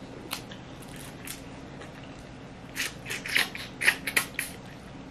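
Snow crab leg shell cracked and picked apart by hand and the meat eaten. A few faint clicks come first, then a quick cluster of sharp cracks and smacks about three to four seconds in.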